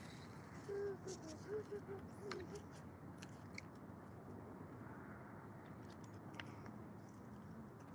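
Spinning reel being cranked to retrieve a lure after a cast: faint, irregular clicking over a steady rush of river water, with a few short squeaky pitched sounds about a second in.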